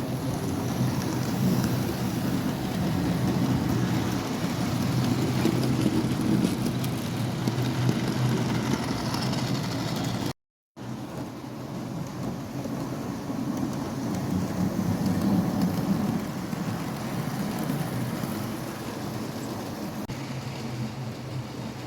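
Model diesel locomotives running on the layout: a steady rumble and hum from the motors and wheels on the track. The sound cuts out briefly about ten seconds in, then the running resumes.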